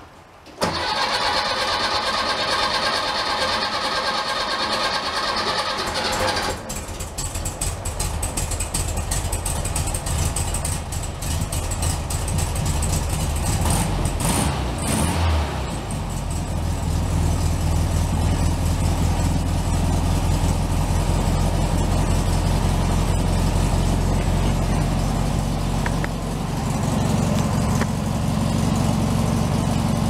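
A 1964 Volkswagen Beetle's air-cooled 1500cc flat-four is cranked by the starter for about six seconds before it catches. It then runs with a low, steady idle, with a brief rev about fourteen seconds in. The long cranking is, in the owner's view, partly a sign that the carburetor needs adjusting to help it start better.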